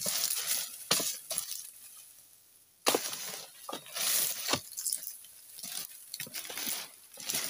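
Oil palm frond bases being hacked with a long-poled pruning chisel: irregular crunching, cracking strikes of the blade into the fibrous stalks. There is a short lull about two seconds in, ended by a sharp hit.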